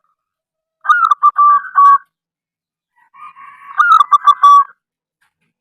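Zebra dove cooing: two phrases of quick, stuttering coos, each about a second and a half long, the second beginning with a softer lead-in before its louder notes.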